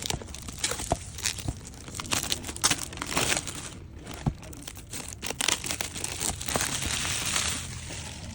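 Toy packaging being crinkled and torn open by hand, with many short crackles and a longer stretch of rustling near the end.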